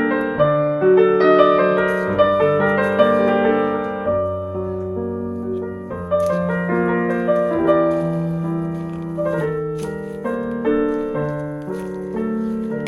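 Background piano music: a gentle melody of sustained notes over held bass notes.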